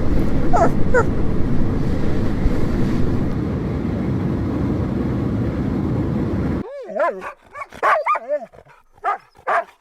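A dog whining and yipping. Two short whines rise over a loud steady noise early on. After the noise cuts off suddenly, a quick run of short yips and whines follows.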